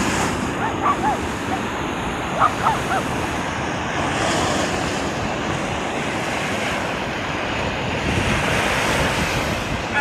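Sea surf breaking and washing up onto a sandy shore, a continuous rushing with wind buffeting the microphone. A few short high calls cut in during the first three seconds.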